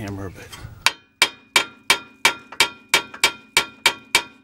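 Hammer blows on the steel steering knuckle, about eleven ringing metal strikes at a steady rate of roughly three a second, knocking the upper control arm's ball joint stud loose.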